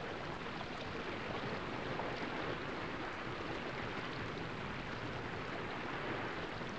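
Steady, even hiss of background noise, with no distinct events.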